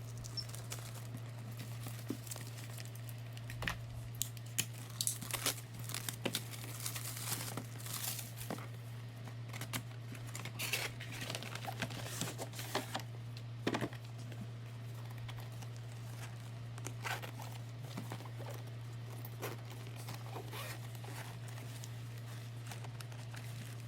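Packaging being handled and opened: irregular crinkling and tearing with small clicks and knocks, over a steady low hum.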